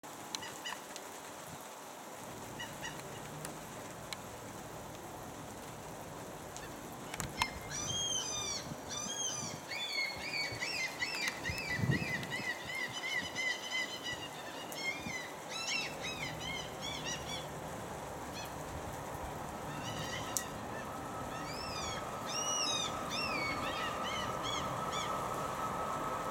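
Birds calling: bursts of short, arched calls come thick and fast from about seven seconds in, fade, and pick up again for a few seconds near the end, over a steady background hiss. In the last few seconds a steady high-pitched hum sets in beneath them.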